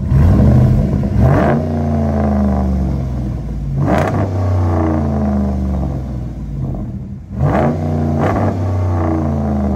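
2011 Dodge Ram 1500's 5.7 L Hemi V8 with the mufflers deleted, revved in about five quick throttle blips while parked, each rising sharply and falling back to a loud idle. The rear resonators are still on.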